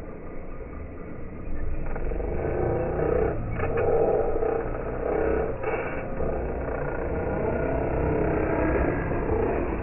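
Radio-controlled race cars running on the track, their motor sound growing louder about a second and a half in.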